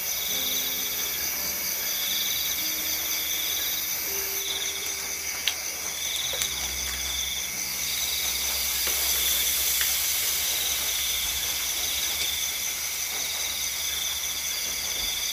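Night insect chorus: a steady high-pitched trilling with one pulsing call that starts and stops about once a second, plus a couple of light clicks.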